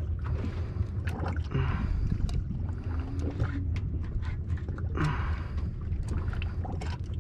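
Steady low rumble of wind and water around a small boat at sea, with scattered small clicks and knocks from handling a fish with a metal fish grip and knife, and a few brief hissing swells.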